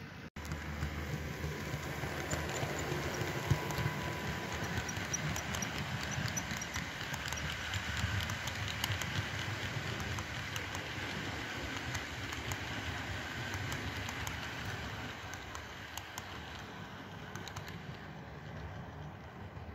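OO gauge model freight train, a Bachmann Class 66 locomotive hauling Accurascale HYA hopper wagons, rolling past on the layout track: a steady rumble with rapid small clicks of wheels on the rails. It grows louder through the first seconds and fades near the end as the train passes.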